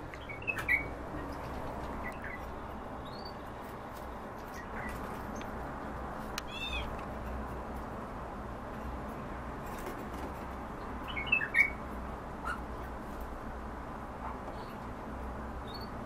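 Small cage songbirds giving short, high chirping calls every few seconds, with a louder run of several calls about eleven seconds in, over a steady low hum.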